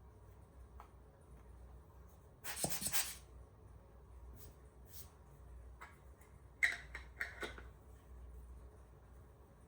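Camera gear being handled during cleaning: a short rubbing sound about two and a half seconds in, then a few light clicks and a cluster of small taps and knocks near the middle.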